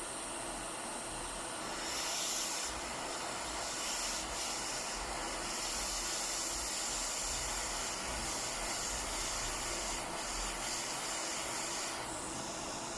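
Hot air rework station blowing a steady hiss of hot air onto a phone to soften the glue holding its screen, the hiss brightening now and then.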